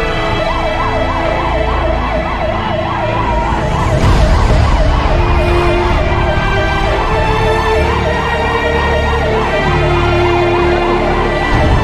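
Emergency vehicle siren in a fast yelp, its pitch warbling up and down about three to four times a second, over a dense low rumble.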